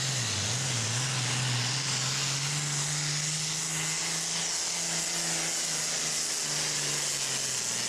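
John Deere super farm pulling tractor's turbocharged diesel engine running hard under load as it drags a weight-transfer sled, its steady engine note under a heavy high hiss. The engine note dips briefly about half a second in and wavers in the second half.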